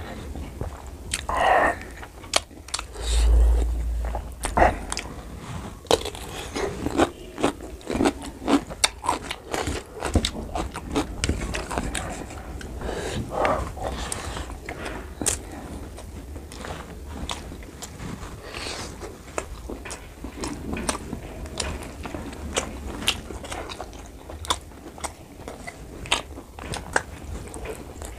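Close-up mouth sounds of a man eating pork curry and rice by hand: wet chewing, biting and lip smacking, with many short sharp clicks. A dull low thump comes about three seconds in.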